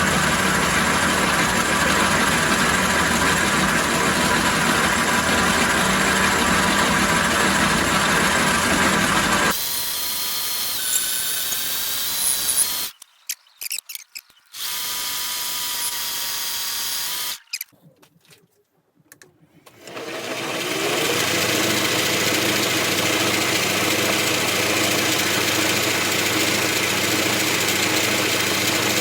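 Logan 210 metal lathe running, driven by a three-phase motor on a variable frequency drive. The sound changes abruptly about a third of the way in and drops to near silence twice for a second or two, then the motor spins back up with a rising whine and runs steadily.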